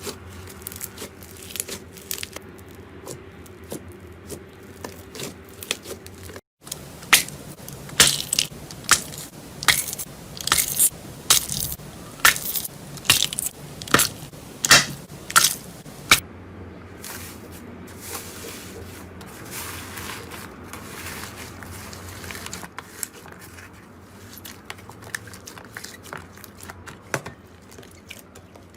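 Slime being pressed and squeezed by hand, making crunchy crackling and popping sounds. In the middle comes a run of sharp, loud pops, about one or two a second, and after it a softer crackling squish.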